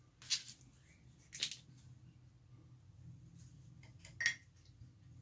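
Three short plastic clicks and taps as acrylic paint tubes are handled and one is uncapped, the last and loudest about four seconds in.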